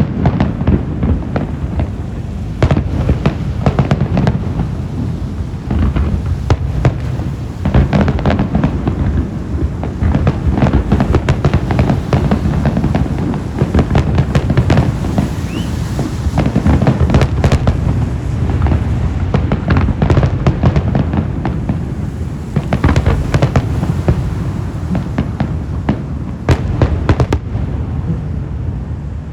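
Fireworks display going off continuously: a dense, irregular run of bangs and crackles over a constant low rumble, thinning out near the end.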